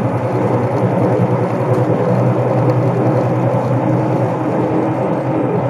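Semi truck's diesel engine and road noise heard from inside the cab while driving on the highway: a steady low drone.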